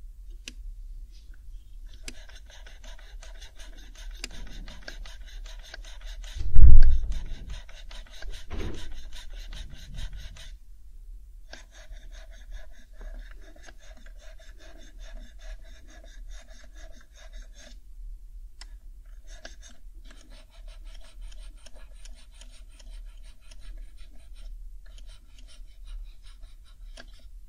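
Alcohol cleaning pad scrubbing over the keycaps of an HHKB Professional 2 keyboard: a dry, scratchy rasp in three long stretches with short pauses. A loud low thump about six and a half seconds in.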